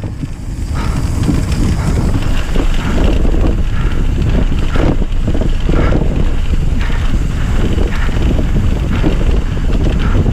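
Wind rushing over the microphone on a fast mountain bike descent, with tyres rolling on a dirt trail and the bike knocking and rattling over bumps.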